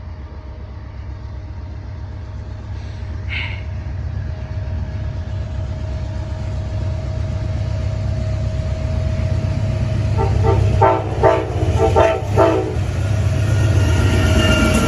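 Amtrak passenger train's diesel locomotive approaching slowly, its low engine rumble growing steadily louder. About two-thirds of the way through, the locomotive's air horn sounds four short blasts in quick succession.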